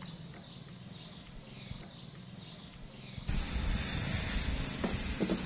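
Faint outdoor background noise with light high chirping. About three seconds in it turns louder and fuller, with a low rumble and a few short knocks near the end.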